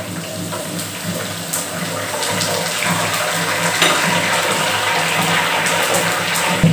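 Curry leaves frying in hot coconut oil in a kadai: a dense sizzle with scattered crackles, growing louder over the first few seconds as the leaves bubble hard.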